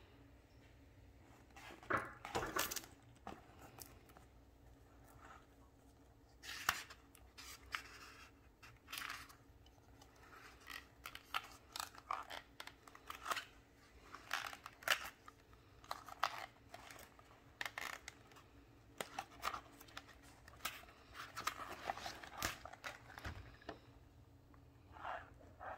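Pages of a spiral-bound paper planner being turned one after another: short, irregular rustles and flaps of paper.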